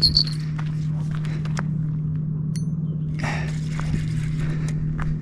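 A steady low engine hum, with scattered light clicks and a brief rustle about three seconds in.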